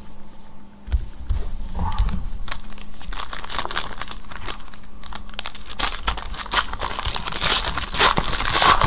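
Foil wrapper of a Panini Prizm Collegiate Draft Picks trading card pack being torn open and crinkled in the hands. A dense crackling starts about a second in and is busiest in the second half.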